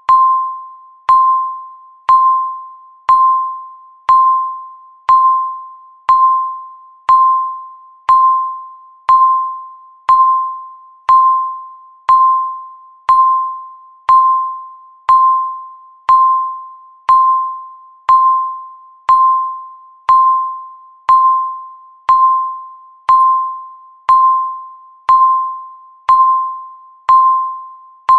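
Countdown timer beeping once a second, each beep marking one second counted down. Every beep is a single high tone that starts sharply and fades away before the next.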